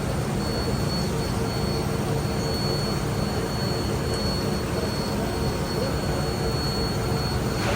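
Large CNC turning lathe running: a steady, loud mechanical hum with a thin, constant high whine over it.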